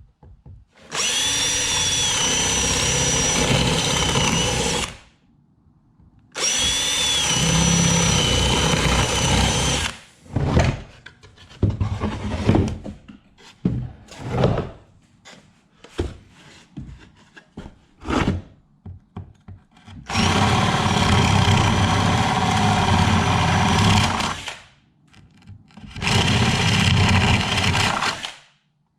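Handheld power tool cutting into wood, with a high motor whine. It runs in two long stretches of about four seconds, then a string of short on-off trigger bursts, then two more long runs.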